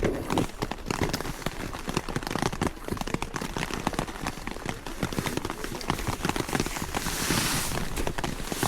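Raindrops pattering densely and irregularly on the tent, with a brief rustling swish about seven seconds in.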